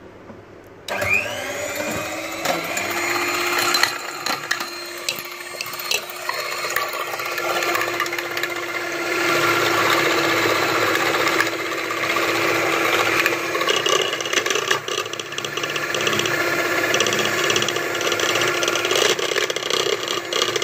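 Electric hand beater switched on about a second in, spinning up and then running steadily as it beats raw eggs in a bowl, with a steady motor hum and the beaters rattling against the bowl.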